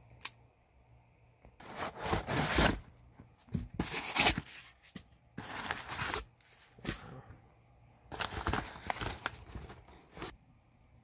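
A sharp click near the start, then packing tape on a cardboard box being cut and torn, with cardboard flaps and plastic wrapping rustling in several noisy bursts of a second or two each.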